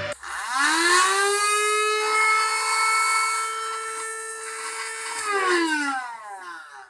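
Small electric motor of a homemade mini table saw starting up and spinning freely with no cut being made. Its whine rises in pitch over about a second, holds steady, then falls away as the motor is switched off and coasts to a stop.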